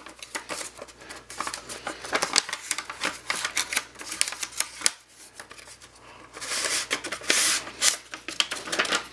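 Packing paper crinkling and crackling as it is unwrapped by hand from a radiator, with two louder rustling swells near the end.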